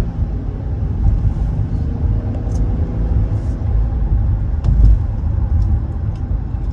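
Road and engine rumble inside a moving car's cabin, steady throughout. There is a low thump a little before five seconds in and a few faint clicks.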